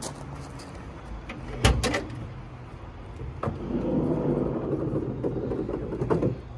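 Hood of a 1971 Dodge Dart being released and raised: a sharp metallic clunk of the hood latch about a second and a half in, then a few seconds of rubbing and rattling as the hood is handled, ending with a knock.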